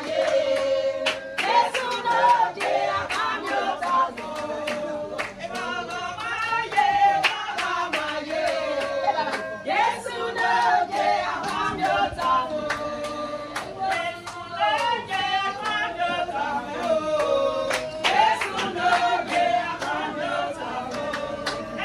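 A group of guests singing together, with handclaps scattered through the song.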